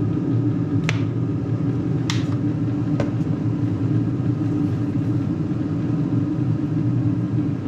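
COSORI air fryer running with a steady fan hum. A few light clicks come in the first three seconds.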